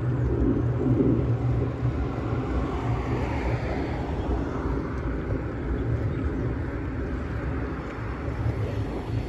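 Steady low rumble of a vehicle moving along rough asphalt, with road noise and a low hum.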